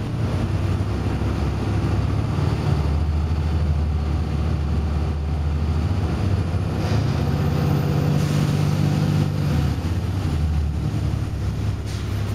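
Volvo B7RLE bus's six-cylinder diesel engine running under way, heard from inside the passenger saloon, its low drone shifting in pitch a few times, over road and body rumble.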